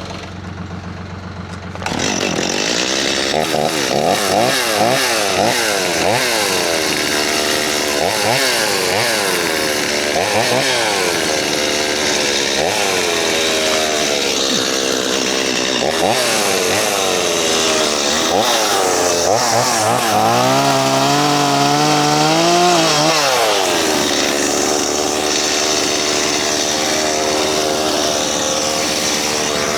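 A gas chainsaw starts up loudly about two seconds in, then revs up and down over and over while cutting brush and tree limbs. A little past two-thirds of the way through, the engine's pitch drops for a few seconds under load, then rises again.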